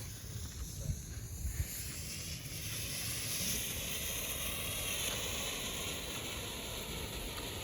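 A couple of faint clicks, then from about two seconds in a lit firework fuse burning with a steady hiss.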